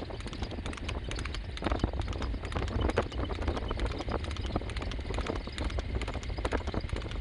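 Horse's hooves clopping rapidly on an asphalt road as it trots at racing speed pulling a two-wheeled cart, with a steady low rumble underneath.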